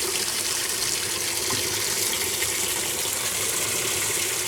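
Kenmore top-loading washing machine filling with cold water at the start of its cycle: a steady rush of water through the inlet valve into the tub.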